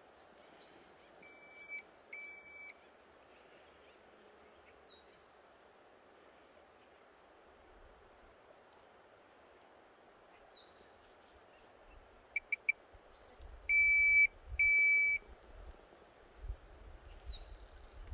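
Steady-pitched beeps, each one tone with overtones: two short ones about a second in, then three quick clicks and two longer, louder beeps about two-thirds of the way through. Between them a short falling call comes every five seconds or so, like a bird, over faint outdoor hiss.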